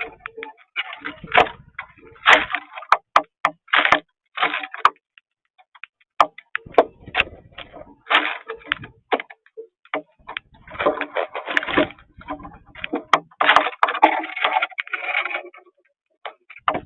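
A flock of cowbirds calling: bursts of gurgling, chattering notes mixed with sharp clicks, coming in several clusters with short gaps between them.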